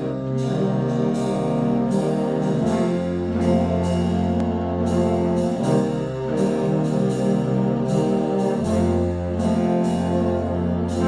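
Concert band playing a blues: brass chords and a low bass line over a steady beat of percussion strokes, about two and a half a second.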